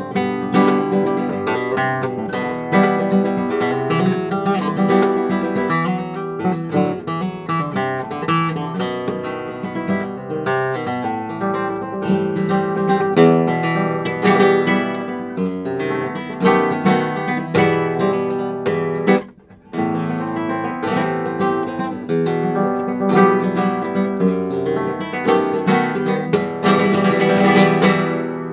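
Solo nylon-string flamenco guitar playing a rumba: quick picked runs mixed with rhythmic strummed chords. The playing stops for a moment about two-thirds through, then picks up again and finishes with a burst of bright strums near the end.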